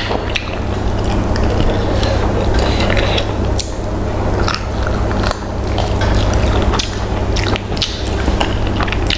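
Close-up eating sounds: a person biting and chewing food, with irregular wet, crunchy clicks over a steady low hum.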